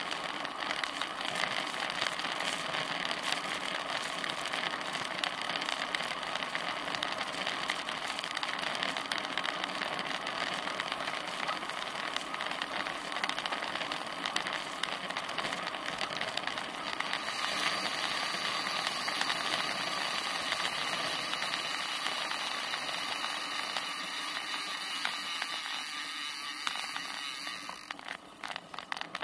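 Steady wind rush and tyre noise from a road bicycle riding on asphalt, heard through a rear-facing camera mounted on the bike. It gets quieter near the end, with a few sharp clicks.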